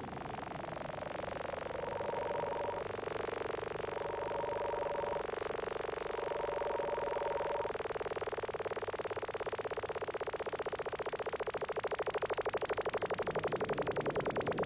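Electronic film-score sounds: a tone glides down and settles into a steady drone, with three short higher notes laid over it. From about two-thirds of the way through, a fast, even pulsing warble grows stronger toward the end.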